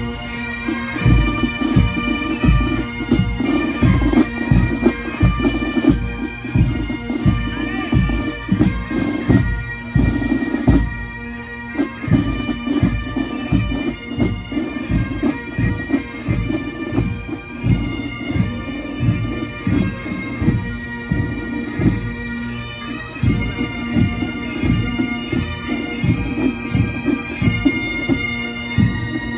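A pipe band's massed Highland bagpipes playing a tune over their steady drone, with drums beating a regular march time of about two beats a second.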